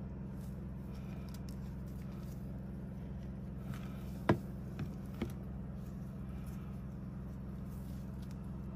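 A steady low hum with three light taps about halfway through, the first the sharpest.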